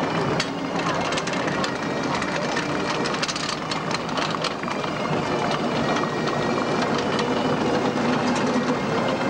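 Tracked military carrier driving past close by, its engine running and its steel tracks clattering and clanking on the road surface.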